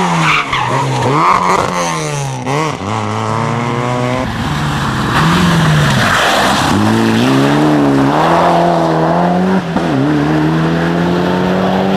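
Competition car's engine revving hard. Its pitch swings up and down quickly several times in the first few seconds, as with throttle blips and shifts, then climbs under acceleration with a gear change near the end, over tyre and road noise.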